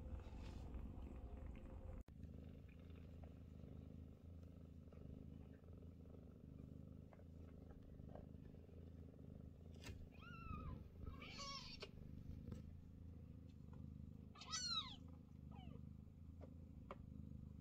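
Faint, steady purring from a nursing Scottish fold cat and her kittens, with a few short high-pitched kitten mews about ten seconds in and again near the end, the last the loudest, as the kittens jostle for a teat.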